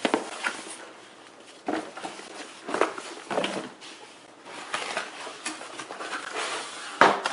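Cardboard box and its packing being opened and handled by hand: irregular rustling, scraping and knocks, with a louder sharp knock about seven seconds in.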